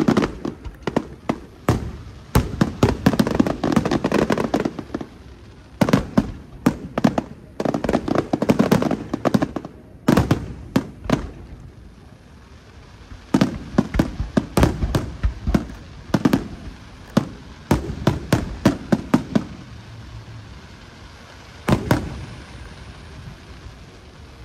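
Aerial fireworks bursting in rapid volleys of sharp bangs and crackling, in dense clusters with short lulls between them.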